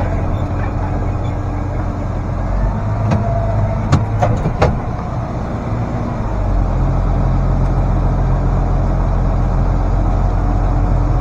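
International Harvester 5288 tractor's diesel engine running steadily. A few sharp clicks come about three to five seconds in, and the engine gets louder about two-thirds of the way through.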